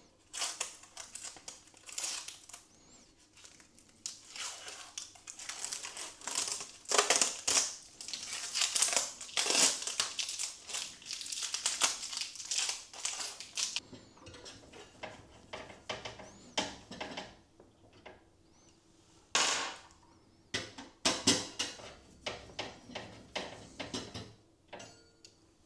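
Packaging being handled and crumpled, a dense crinkling rustle for the first half, then scattered separate crackles and clicks near the end.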